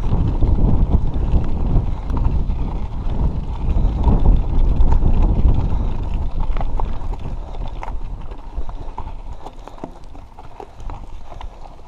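Mountain bike rolling over a rocky dirt trail: tyres crunching on loose stones and the bike rattling over the rocks. Wind rumbles on the microphone and eases about halfway through, leaving scattered sharper clicks and knocks.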